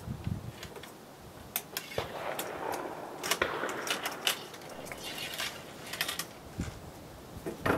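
A cleaning rod and patch worked through the bore of a Chassepot rifle at its open breech: a string of sharp metallic clicks, taps and scrapes, thickest in the middle seconds, with one louder click near the end.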